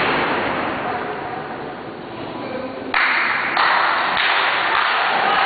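A crowd cheering and shouting in a hall. The noise dies down over the first couple of seconds, then jumps up suddenly about three seconds in and stays loud.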